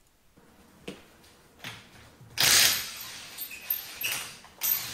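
A wrench working the lug bolts of a car's front wheel. A click comes about a second in, then several short bursts of mechanical rattling; the loudest, about two and a half seconds in, lasts about half a second.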